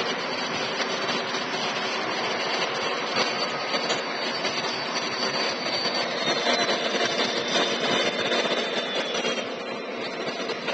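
Lionel O-gauge model freight train running past on three-rail track: a steady rolling rumble of metal wheels on the rails, with a faint high whine.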